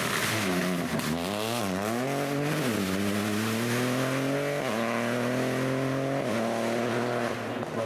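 Rally car engine working hard: the revs dip and rise twice early on, then climb steadily under acceleration, broken by two sharp upshifts, the first about two-thirds of the way in and the second shortly after.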